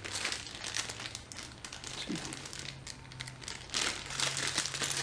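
Clear plastic bag of survival gear crinkling as hands handle it and work it open, louder near the end.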